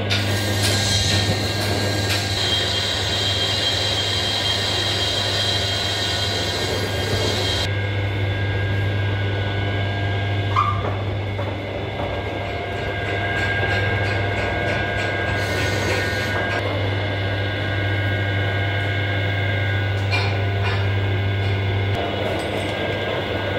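Metal lathe running, with a truck flywheel spinning in the chuck while the cutting tool resurfaces its face. A steady motor hum underlies it, and a higher hiss falls away about eight seconds in.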